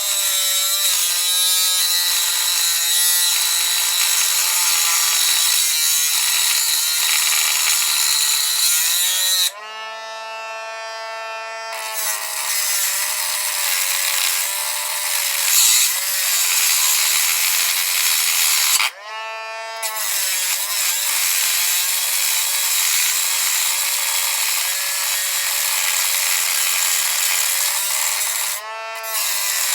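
A high-speed power tool cutting into a metal padlock: a steady high motor whine under a loud grinding hiss. The hiss drops out three times for a second or two, leaving only the whine of the tool running free before it goes back into the cut.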